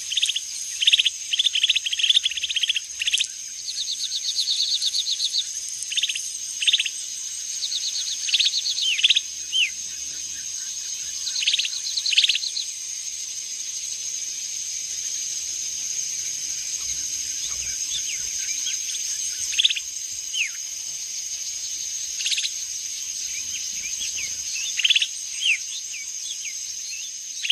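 Natural ambience of many short bird chirps, with a few rapid trills in the first half, over a steady high-pitched insect drone.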